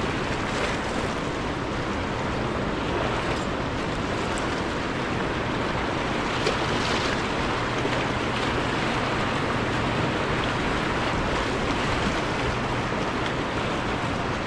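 Steady rush of a fast-flowing river current, running high from the dam's generation release.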